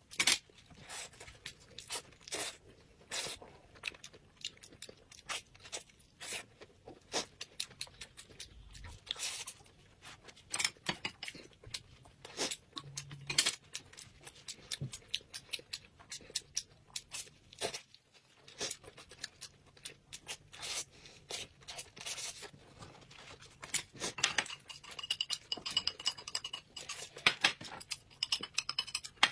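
Chopsticks clicking and scraping against ceramic plates and a bowl as food is gathered and laid onto a thin wrapper, mixed with soft tearing and crinkling handling noises. The clicks are sharp and irregular, several a second at times.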